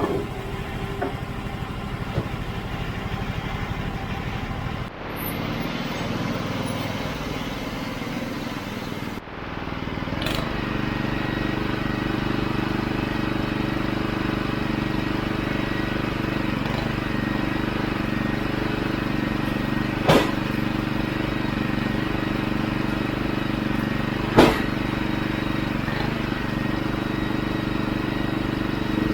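Norwood HD36 portable band sawmill's gas engine running steadily under a steady load as the mill saws a spruce log. The sound shifts abruptly twice in the first ten seconds. Two sharp knocks come through over the engine later on.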